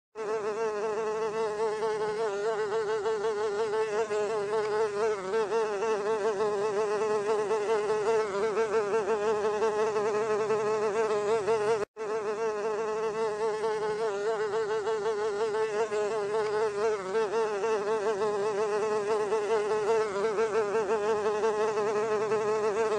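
Housefly buzzing in flight: a continuous wing-beat hum whose pitch wavers slightly, cutting out for an instant about halfway through.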